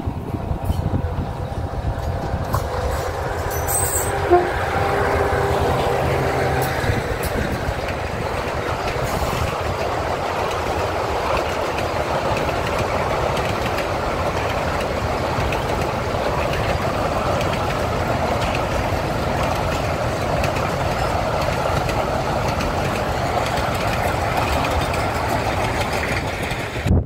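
Diesel sugar-cane train running past: the locomotive's engine is heard as a steady note, then the rattle of the train rolling along, with a short sharp sound about four seconds in. Cuts off suddenly at the end.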